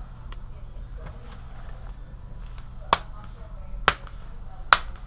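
Plastic clips of a laptop's screen bezel snapping into place as the bezel is pressed onto the lid by hand: sharp single clicks, three loud ones about a second apart in the second half, with fainter ticks before them.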